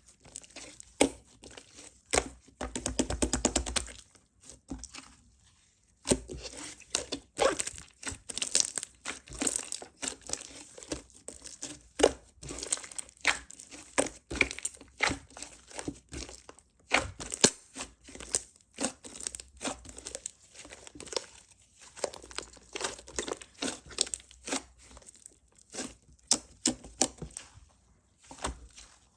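Slime being worked and coiled by hand into a swirl, giving a dense run of sticky crackling and popping clicks. There is a short pause about four seconds in.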